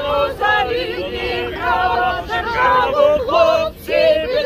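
A crowd of marchers singing together, several men's and women's voices in unison with long held notes.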